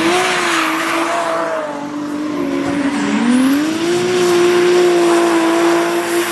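Drift car (Toyota Supra body) held at high, fairly steady revs while its spinning rear tyres squeal. The engine note sags about three seconds in and climbs back up.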